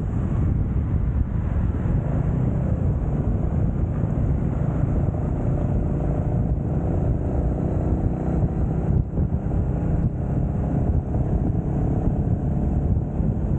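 Royal Enfield Meteor 350's single-cylinder engine running at a steady cruising speed, mixed with wind rush on the microphone as the bike rides along.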